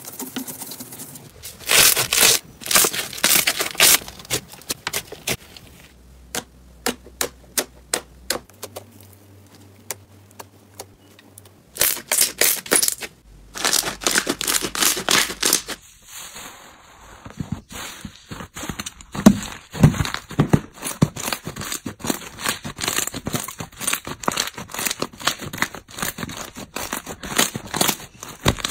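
Slime being pressed, spread and kneaded by hand: sticky crackling and popping in several bursts. Around the middle the pops come slowly one at a time, then turn into a fast, nearly continuous crackle.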